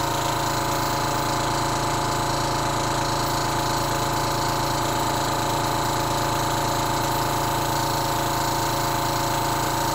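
Mantus scuba-diving compressor running steadily at full pressure, its mechanical pressure relief valve open around 3300 PSI and hissing as it vents the excess air. The hiss is hard to hear over the compressor.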